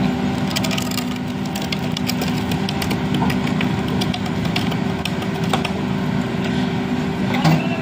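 Heavy diesel engine idling steadily, with light clicks and knocks scattered over it.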